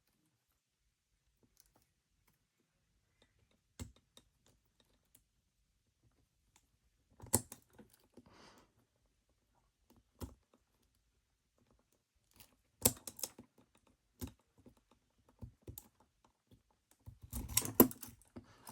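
Sparse small clicks and scrapes of a handcuff being handled while a thin laminate shim is worked into its ratchet, with quiet gaps between. A busier run of clicks comes near the end.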